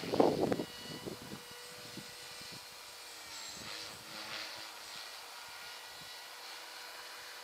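Thunder Tiger MiniTitan E325 electric RC helicopter flying, its motor and rotor giving a steady whine. Wind buffets the microphone, loudest in a burst about half a second in.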